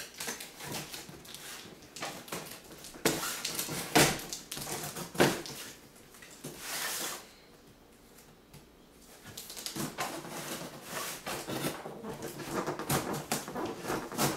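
A large cardboard shipping box being opened and handled: packing tape cut and pulled, cardboard scraping, and a few sharp knocks of the box on a wooden table about three to five seconds in. Dense crackly rustling of cardboard and tape from about ten seconds in.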